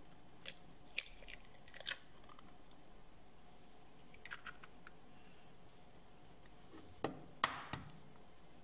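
Eggs being cracked by hand over a glass mixing bowl: a few scattered soft clicks and taps of eggshell breaking and touching the glass, with a cluster of louder taps near the end.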